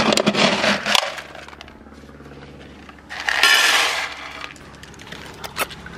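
Dry dog kibble rattling as a plastic scoop digs into a bucket of it for about a second, then a second rattling clatter a few seconds in as the kibble is poured into a stainless steel bowl.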